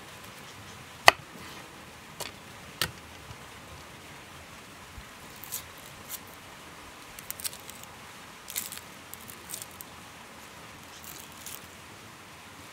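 A large knife chops down through an onion onto a wooden cutting board about a second in, sharp and loud, with two lighter knocks soon after. Then dry onion skin crackles and rustles in short bursts as the halves are peeled by hand.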